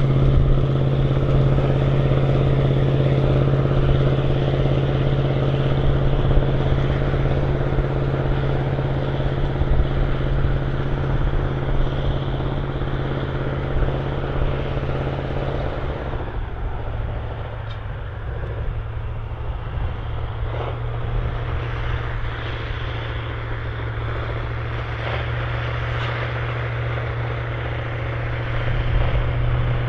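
Big articulated four-wheel-drive farm tractor's diesel engine running steadily with a deep, even drone. The sound grows quieter a little past halfway and louder again near the end.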